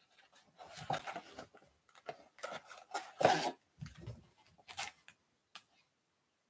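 A cardboard blaster box being opened and its foil trading-card packs handled: a run of irregular rustles and crinkles that stops near the end.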